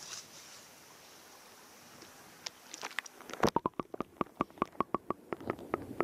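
Shallow stream heard through a waterproof camera: a steady hiss of flowing water and wind at the surface, then, as the camera goes under, the sound turns muffled and a fast run of sharp underwater clicks and knocks starts, about five a second.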